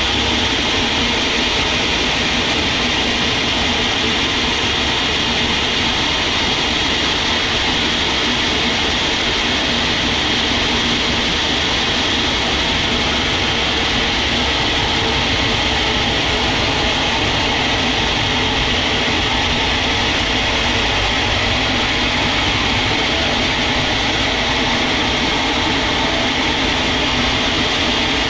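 Steady machinery noise of a sawmill running, unbroken and at an even level.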